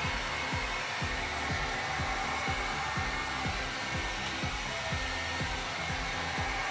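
Handheld heat gun blowing hot air steadily with a whining fan, warming rubberised lino flooring to set it in place. Background music with a steady beat plays underneath. The blower cuts off abruptly at the end.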